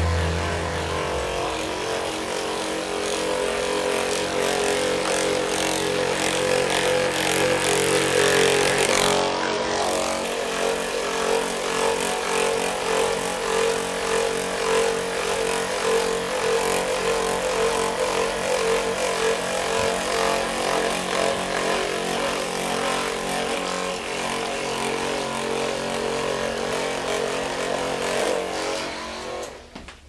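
Handheld percussion massage gun running steadily, a continuous motor hum with a rapid hammering as its head is pressed into the hip muscles. It stops about a second before the end.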